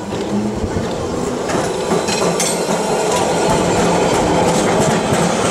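Vintage W Class tram passing close by, its steel wheels knocking and clicking over the rails with a rumble that grows louder as it nears.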